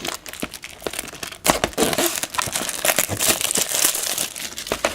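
Crinkling and crackling of plastic wrapping as a trading-card booster box is handled, with a run of quick irregular rustles and clicks that grows busier about a second and a half in.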